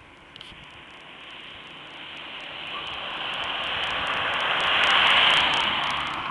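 A car driving past on a wet, snowy road: the hiss of its tyres swells steadily, peaks about five seconds in, then starts to fade.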